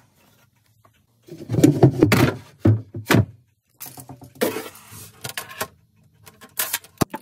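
A wooden cabinet door being opened and a tape measure blade pulled out and set against the cabinet's inside walls: a run of irregular knocks, rubs and rattles starting about a second in.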